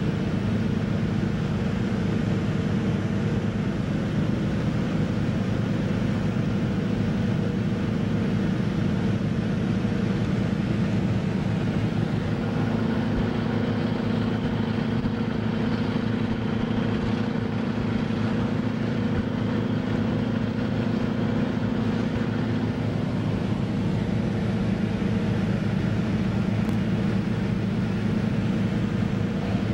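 A boat's engine running steadily, a constant low drone with a few held tones and no change in speed.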